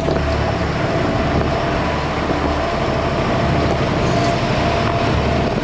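An engine running at a steady speed: a steady low drone under a broad rush of noise, with a faint steady whine.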